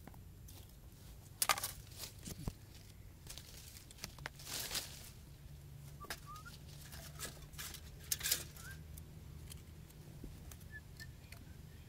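Hands handling short lengths of plastic PVC pipe and other small objects: irregular knocks, taps and rustles, loudest about a second and a half in and again about eight seconds in. A few faint short chirps from a bird are heard around the middle and near the end.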